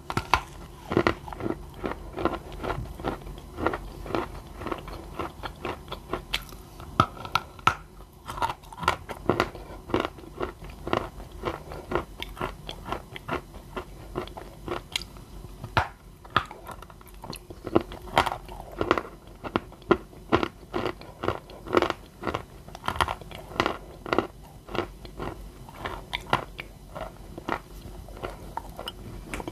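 Close-up crunching of a lump of dry white edible clay being bitten and chewed: a continuous run of sharp, crisp crunches, several a second, with wet mouth sounds.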